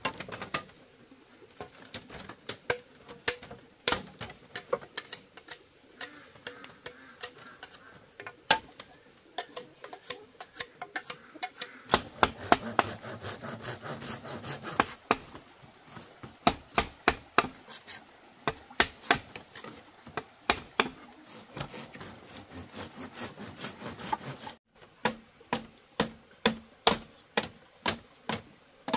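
Bamboo being worked with hand tools: a run of sharp wooden knocks and taps in an uneven rhythm, with a steadier rasping, sawing-like noise under them for a stretch in the middle.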